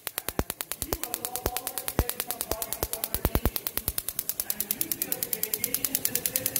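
Van de Graaff generator sparking across the gap to its grounded discharge sphere: a rapid run of sharp snapping cracks, about ten a second. After about four and a half seconds the clicking becomes more even and closer together.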